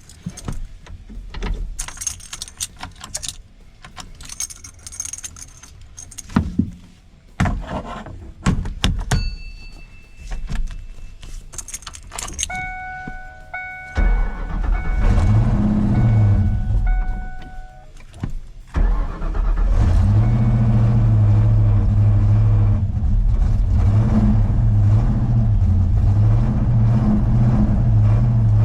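Clicks and key jangling, then a short repeating chime, then a Ford Mustang's 302 V8 starts about halfway through, revs, dips briefly and settles into a steady run. The owner hears an exhaust leak on this engine and suspects it of causing a lean reading on the wideband.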